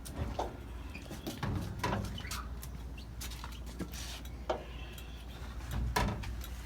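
Handling and movement noise: scattered clicks and knocks with a few short squeaks, over a steady low hum.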